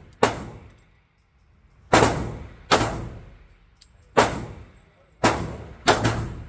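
Six pistol shots from a Glock, fired at irregular intervals, each with a reverberant tail off the walls of an indoor range.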